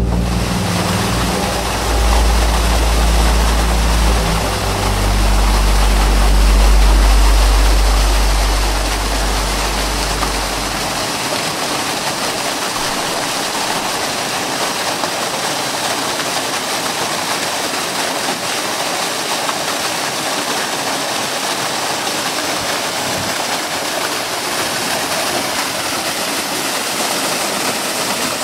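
Steady, loud rushing noise with no distinct events. A deep low rumble underneath it for the first ten seconds or so drops away about eleven seconds in.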